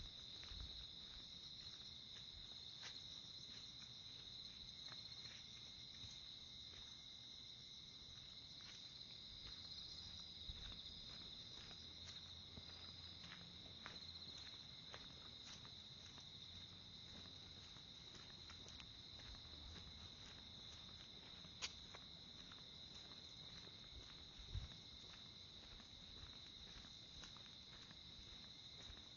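A steady high-pitched chorus of insects trilling, with soft footsteps ticking at an even walking pace, about two a second.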